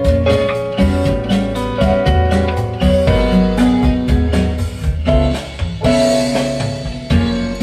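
Recorded band music with guitar, deep bass and a steady drum beat, played through JBL 240Ti three-way floor-standing loudspeakers driven by a tube amplifier and heard in the room.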